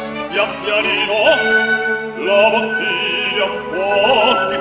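Male operatic singing in a comic opera duet, the voice wavering with vibrato, over a steady orchestral accompaniment.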